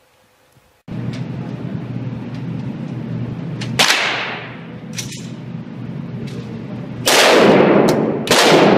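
Large revolver fired on an indoor shooting range: three loud shots, the last two close together, each ringing out with a long echo off the range walls, with two fainter sharp cracks in between. A steady low hum starts suddenly about a second in and runs under the shots.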